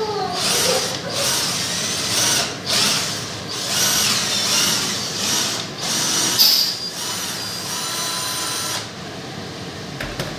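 Cordless drill-driver drilling a hole upward into the underside of a wall cabinet, running in a series of short bursts with brief pauses between them and stopping abruptly about nine seconds in.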